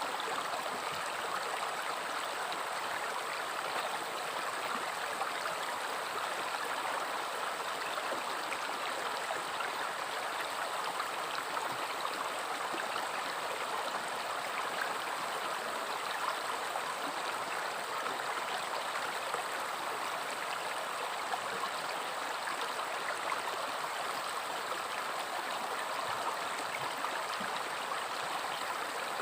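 River water flowing and babbling steadily over stones, an even rush with fine gurgling and no change in level.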